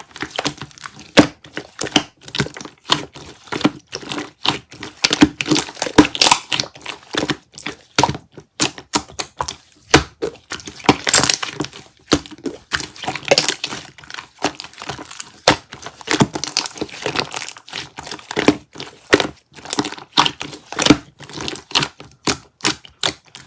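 Yogurt slime being squished and pressed by hand: a dense, irregular run of sticky pops, clicks and crackles.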